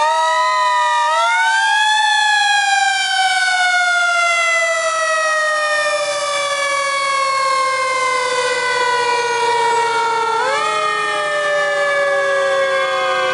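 Fire engine sirens sounding together as the trucks pass, each winding up quickly and then slowly winding down in pitch, with another rise about ten seconds in.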